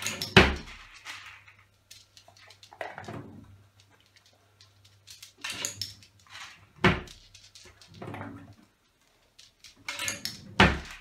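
A spaniel's front paws striking the front of a closed kitchen drawer, three sharp thumps that rattle it: about half a second in, about seven seconds in and near the end. Softer scuffs and rustles come between the thumps.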